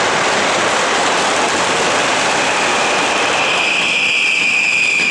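Fireworks on a ceremonial cart going off in a continuous dense hissing crackle. About three and a half seconds in, a steady high whistle joins it.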